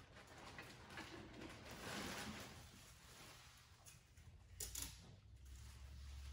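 Plastic bags rustling faintly as supplies are handled and unpacked, with a few light clicks about four and a half seconds in. A low hum comes in near the end.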